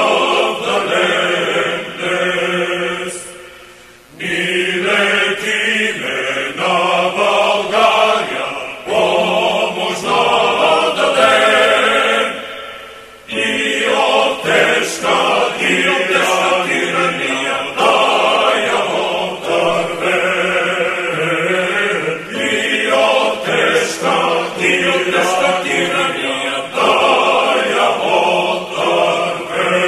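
Background music: a choir singing a chant in long phrases, with short breaks about four and thirteen seconds in.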